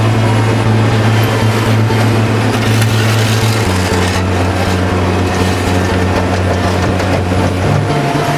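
Caterpillar tracked asphalt paver running, a steady low engine hum under a haze of machinery noise; the hum drops a step in pitch about four seconds in.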